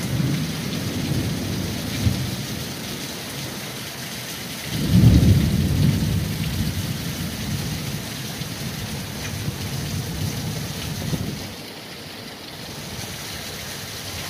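Thunderstorm with steady heavy rain and gusting wind, and a deep rumble that swells sharply about five seconds in and dies away over several seconds.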